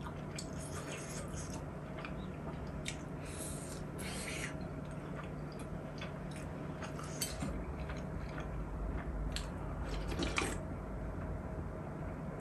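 Quiet eating: chopsticks clicking against a ceramic bowl and dishes, with brief soft slurps of broth, over a low steady hum.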